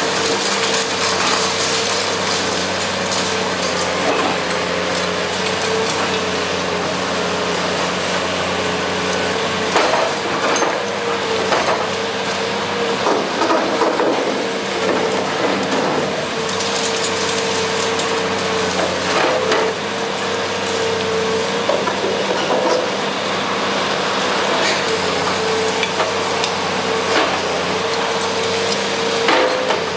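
A hydraulic demolition excavator runs with a steady engine and pump drone while its concrete crusher jaws crunch through reinforced concrete. Sharp cracks and falling debris break through now and then over a steady hiss.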